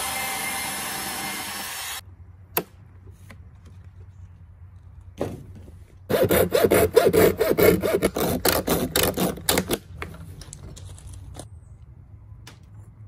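DeWalt cordless portable band saw running and cutting through the plastic dashboard, stopping abruptly about two seconds in. After a click and a knock comes the loudest part: a few seconds of quick, rhythmic scraping strokes, about four or five a second.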